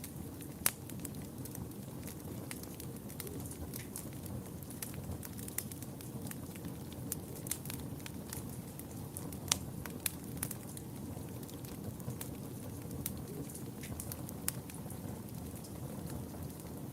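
Wood fire burning in a fireplace: a steady low rumble of flames with frequent sharp crackles and pops, the loudest just under a second in and again about nine and a half seconds in.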